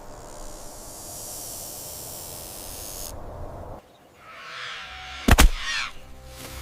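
A steady outdoor hiss that cuts off about three seconds in. After it come a rustling, one sharp loud hit a little after five seconds, and a low held drone underneath.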